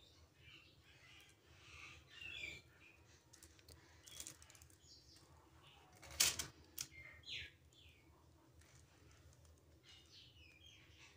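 Faint sounds of a silicone spatula spreading thick cake batter across a parchment-lined metal baking tray. A sharp knock about six seconds in, and a few faint high chirps come and go.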